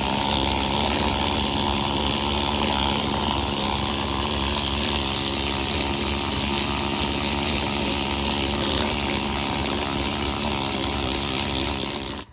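Pneumatic needle scaler running steadily, its steel needles hammering loose rust scale off the ribbed cast-iron housing of a 14-bolt differential. The sound cuts off abruptly at the end.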